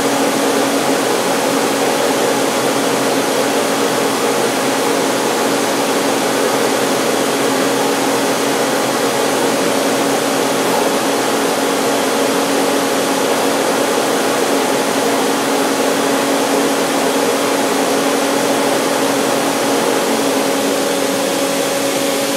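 Main spindle of a DMG Mori Sprint 42/8 CNC Swiss lathe turning at 2000 RPM with no cutting: a steady whirr with a low steady hum underneath.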